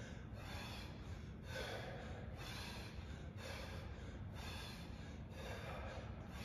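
A man breathing hard with exertion, steady in-and-out breaths about once a second.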